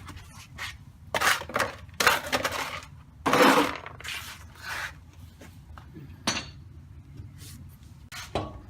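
Metal brake parts and hand tools clanking and scraping in a series of sharp knocks, the loudest clatter coming about two to four seconds in, as the brake assembly is put back together.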